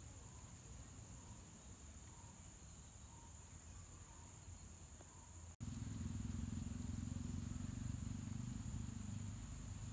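Faint, steady high insect trilling in outdoor ambience. About halfway through the sound cuts out for an instant, and a louder low rumble comes in under the trill.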